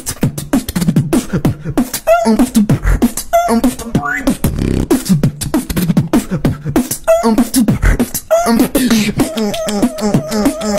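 Beatboxing into a handheld microphone: fast mouth-made drum sounds mixed with rising vocal pitch glides. Near the end a held sung tone runs under the beat.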